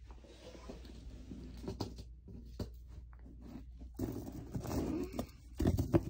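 Handling noise of fidget toys (stretchy textured noodles and fidget rings) being moved around in a fabric storage bin: soft rustling and scattered light knocks, busier and louder over the last two seconds.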